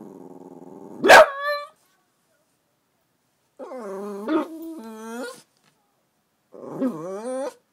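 French bulldog puppy growling low, then one sharp bark about a second in, followed after a pause by two drawn-out, wavering whines.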